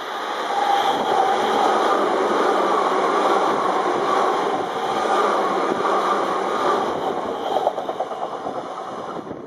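Izukyu 2100 series 'Resort 21' electric train running through the station: a steady rush of wheels on rail that builds over the first second, with a quick run of rail-joint clicks near the end. The sound cuts off suddenly.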